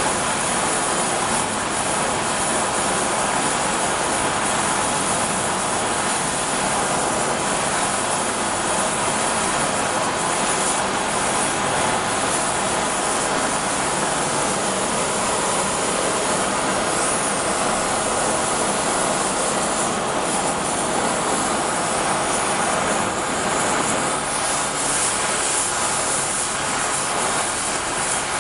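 Gas brazing torch burning steadily, a loud even hiss of flame while the part is heated for brazing.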